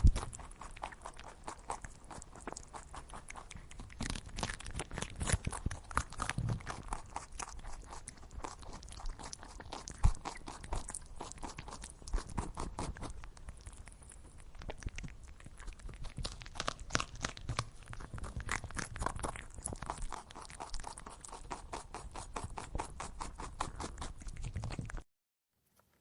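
Rabbit chewing food: a rapid, irregular run of small crunches that stops abruptly near the end.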